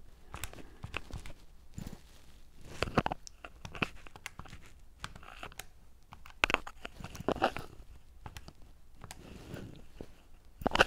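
Buttons of a handheld calculator being pressed: a run of irregular clicks, with a few louder clusters of presses.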